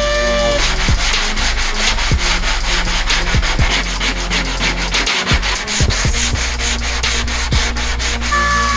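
Hand block-sanding cured body filler on a car's rear quarter panel with 80-grit paper: quick back-and-forth rasping strokes, about four a second.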